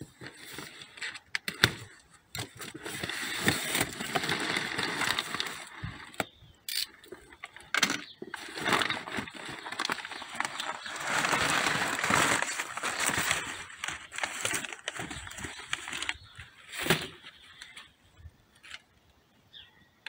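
A cardboard box being opened and crumpled packing paper rustling and crackling as it is pulled out, with sharp crinkles, in two long spells that die down in the last few seconds.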